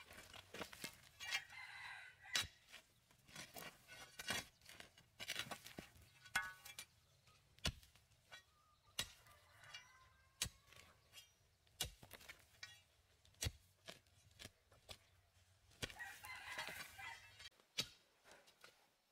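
Metal digging bar being driven into rocky soil, a sharp knock about every second or so as it strikes dirt and stones. A rooster crows in the background, once near the start and again near the end.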